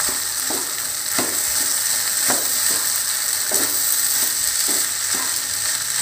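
Cooked basmati rice frying in a pan with a steady sizzle, while a wooden spatula stirs and tosses it in repeated scraping strokes, roughly one or two a second.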